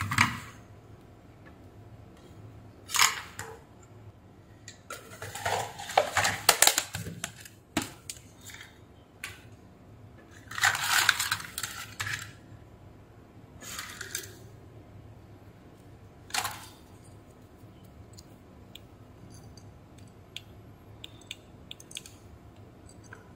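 Scrap circuit boards and parts being rummaged through in a plastic tub, rattling and clattering in several short bursts. The longest and loudest burst is about halfway through, and a few light clicks follow.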